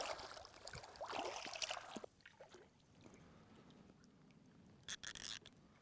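Shallow lake water splashing and sloshing as a carp is released by hand and swims off, dying away about two seconds in. A short rustling noise follows near the end.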